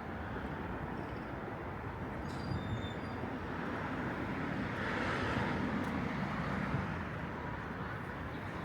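Steady traffic noise from passing vehicles, swelling louder around the middle as one goes by.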